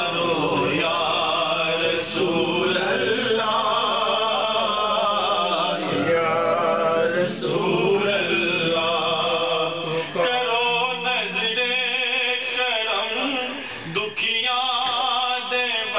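A man singing a naat (devotional praise song for the Prophet) unaccompanied into a microphone, holding long notes with wavering ornaments, with a brief pause near the end.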